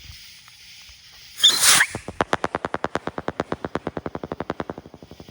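Consumer strobe rocket firework: a loud hissing burst about a second and a half in, then a rapid train of sharp strobe pops, about ten a second, for nearly three seconds, fading toward the end.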